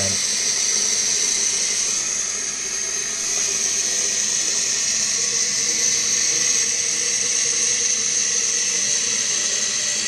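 Toilet fill valve hissing steadily as water runs in to refill the tank.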